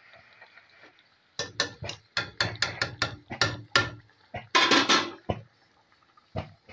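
A ladle knocking quickly against the side of a large aluminium cooking pot, about a dozen sharp knocks, followed by a longer clatter and one last knock near the end.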